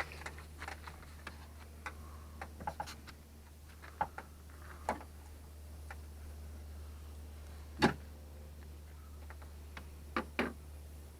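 Scattered metallic clicks and knocks of a wrench and hands working on the door-handle fasteners inside a pickup's door panel. The loudest knock comes about eight seconds in and two more close together near the end, over a low steady hum.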